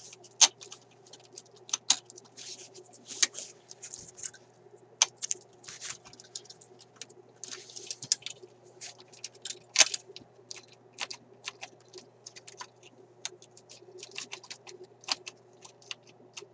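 Irregular clicks, knocks and short scrapes of a metal car-radio chassis and its parts being turned over and pried at by hand, over a faint steady hum.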